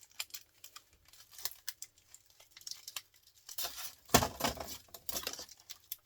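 Metal parts of a scrap electric motor being handled during dismantling: scattered small clicks and scrapes, then a louder knock with a rattling clatter about four seconds in.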